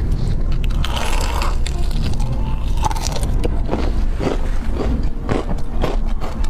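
Close-miked biting and chewing of crispy fried chicken, a run of irregular crisp crunches over a steady low rumble.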